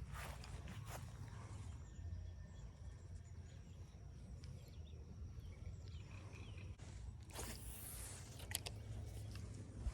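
Faint outdoor ambience: a low steady rumble with a brief rustle about seven seconds in and a few sharp clicks near the end.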